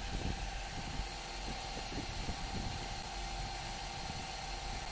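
Cylinder boring machine running steadily with a constant whine, its boring bar cutting a TATA Ace engine block's cylinder out for a sleeve. Scattered light knocks come through in the first couple of seconds.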